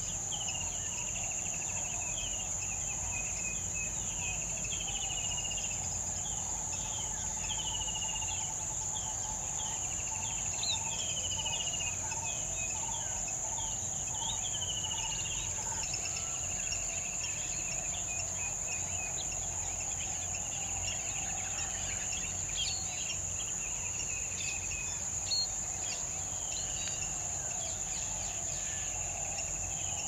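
Steady high-pitched drone of insects, with short descending chirps repeating about once a second, mostly in the first half.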